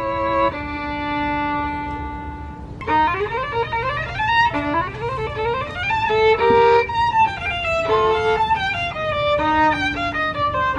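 Instrumental background music: a melody of a few long held notes, breaking into quick running notes about three seconds in.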